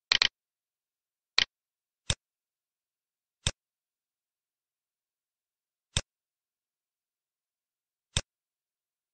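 Computer mouse clicking: a quick double click, then five single clicks at uneven intervals.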